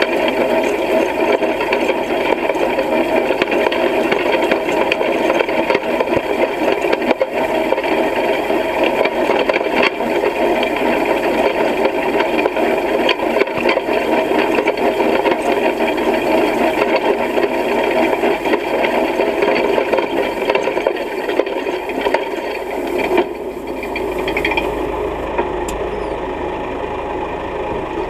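Hay rake's reel of spring-tine bars turning, with a dense steady metal rattle and clatter as it sweeps hay. About 23 s in the rattling dies away, leaving a low engine hum.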